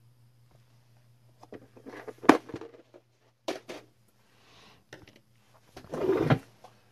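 Small plastic parts box handled on a workbench: scattered clicks and knocks as blue 1/8-watt resistors are taken out, the sharpest a little over two seconds in, then a short rustle near the end. A low steady hum runs underneath.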